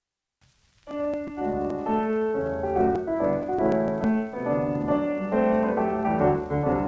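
Piano introduction to a song played from an old 78 rpm record, starting about a second in after a brief moment of record hiss, with a few surface clicks.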